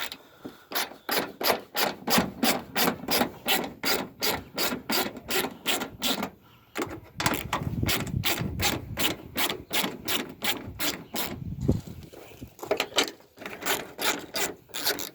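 Hand ratchet clicking steadily, about four clicks a second, as 10mm headlight bolts are backed out. The clicking stops briefly twice.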